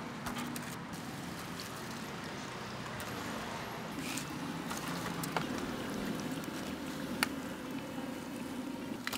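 Battered fritters deep-frying in a wok of hot oil, a steady bubbling sizzle. A couple of short metal clinks from the frying utensils come about halfway through.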